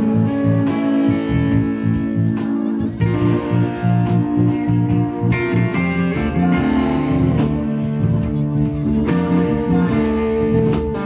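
Live rock band playing, heard from the crowd: electric bass, guitars and drums keeping a steady beat, with a man singing lead.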